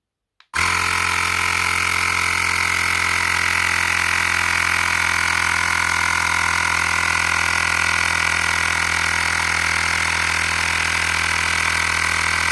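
Xiaomi Mi Portable Air Compressor 1S starting abruptly about half a second in, then running steadily with a loud buzzing hum as it pumps an electric scooter tyre up toward 45 psi.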